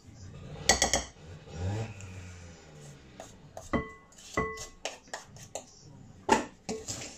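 Metal spoon beating butter and sugar in a glass mixing bowl: creaming them to a pale mixture, with scraping and a run of knocks. Twice near the middle the spoon strikes the bowl and it rings with a clear tone.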